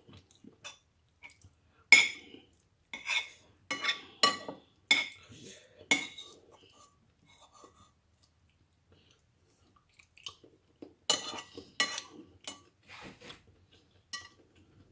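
Metal spoon clinking and scraping against a white ceramic bowl as the last of a meal is scooped up: a run of sharp, ringing clinks over several seconds, a quiet pause, then a few more clinks.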